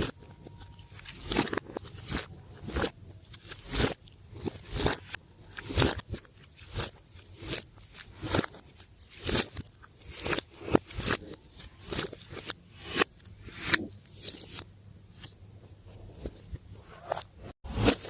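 Slime being squeezed and worked by hand, making short, sharp squishing pops about one to two times a second.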